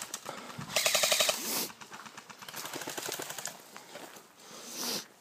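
Airsoft rifle firing a short full-auto burst of rapid, evenly spaced shots about a second in, followed by quieter, uneven noises.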